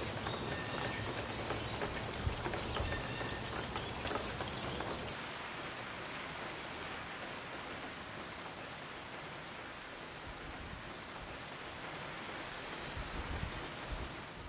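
Steady rainfall, with many individual drops ticking close by for the first five seconds or so, then settling into an even hiss of rain.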